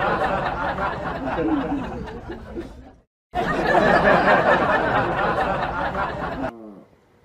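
A group of people laughing and chattering. It cuts out briefly about three seconds in, starts again, and fades away near the end.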